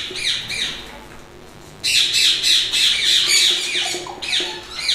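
Ringneck parakeets squawking: a rapid run of harsh, falling calls that dies down for about a second and then starts again loudly.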